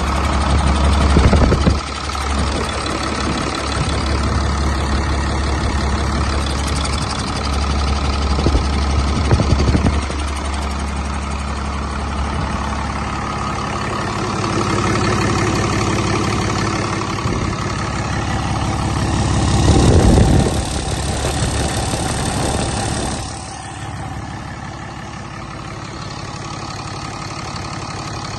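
2011 Cummins ISB 6.7 inline-six turbodiesel running on a test run, mostly at idle, with three brief rises in engine speed. It settles to a quieter idle near the end.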